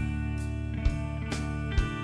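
Post-hardcore band recording with guitar notes ringing over bass and a loud beat about once a second.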